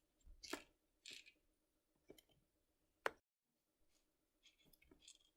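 Faint small scrapes and clicks of a screwdriver and hand tools on a laptop while the new screen's mounting screws are put back in, with one sharper click about three seconds in.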